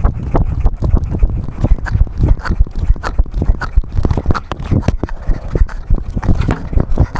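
Handling noise from a camera worn on a walking cat: a fast, uneven run of knocks and thuds as each step jolts the mount, with scuffing against the cat's fur.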